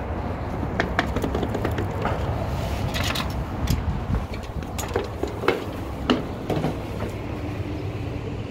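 Footsteps and the clunks and clicks of glass entrance doors being pushed open and swinging shut, over a steady low rumble.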